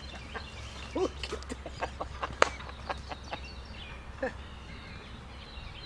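Wild turkeys clucking: a scattering of short, sharp clucks, some with a quick rise and fall in pitch. The loudest comes about two and a half seconds in.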